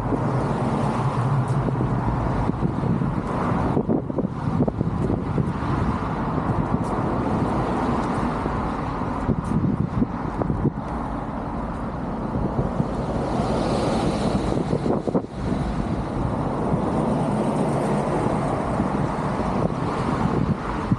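Steady road traffic noise from a stream of passing vehicles.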